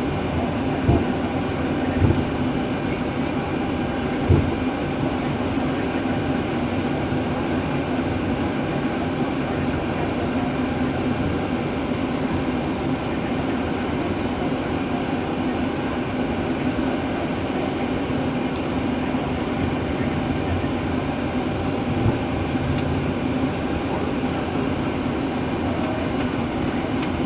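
Steady drone inside an airliner's cockpit on the ground after landing: engines and airflow running evenly, with a few short thumps in the first few seconds and another about 22 seconds in.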